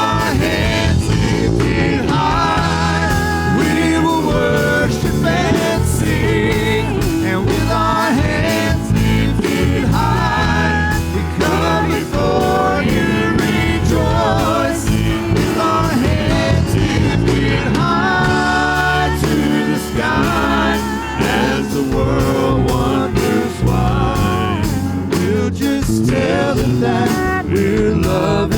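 Live church worship music: a gospel praise song played by a band with singing over it.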